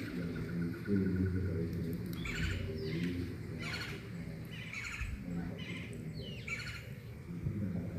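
Birds calling: a series of short chirps, roughly one a second from about two seconds in, over a steady low background murmur.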